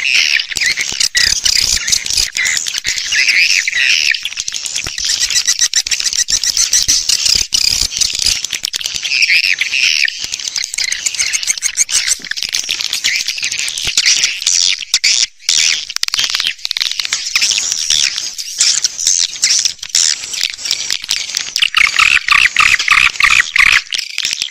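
Swiftlet lure recording: a dense chorus of fast, twittering swiftlet chirps that goes on without a break, played to attract swiftlets to a nesting house. A lower, fuller layer of chirping comes in near the end.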